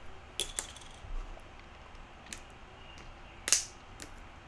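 About five scattered, sharp clicks of a computer mouse and keyboard at a desk, the loudest about three and a half seconds in, over faint room hiss.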